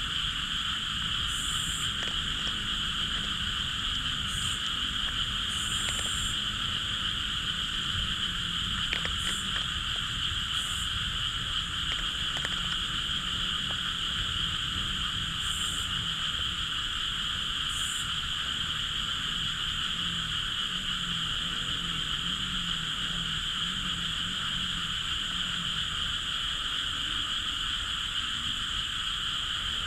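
A dense night chorus of frogs, heard as a steady, unbroken trilling drone, with a few short high chirps every few seconds in the first part.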